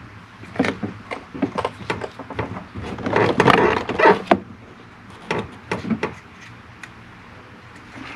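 Small clicks and knocks of door handle parts being handled and worked into place, busiest about three to four seconds in, with a few more clicks after and a quieter stretch near the end.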